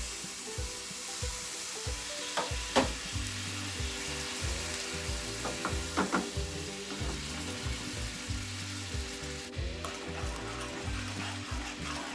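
Sugar and water sizzling and bubbling in a hot pan over a gas flame as the syrup cooks toward caramel, with stirring. There are two sharp knocks, about 3 s and 6 s in.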